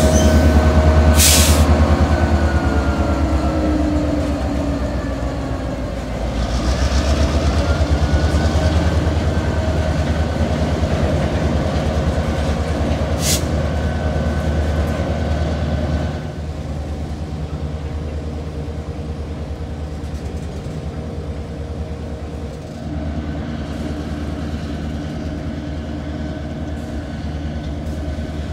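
Norfolk Southern diesel freight train passing close by: a locomotive's engine rumble and the clatter of covered hopper cars' wheels on the rails, with a few sharp clacks. The sound drops in loudness a little past halfway through as the locomotive moves away.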